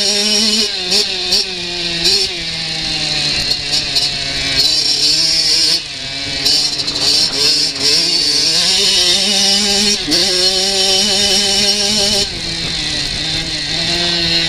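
Kawasaki KX85 two-stroke dirt bike engine running under load as it is ridden, its pitch repeatedly climbing and then dropping sharply at gear changes or when the throttle is eased, heard close up from the rider's goggles.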